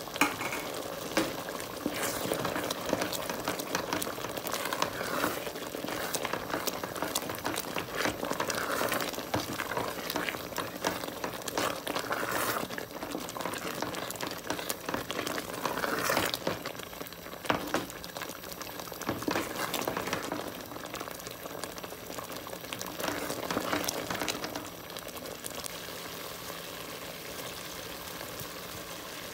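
Thick kidney-bean curry bubbling as it simmers in a metal pot, with a wooden spoon stirring through it and now and then knocking against the pot.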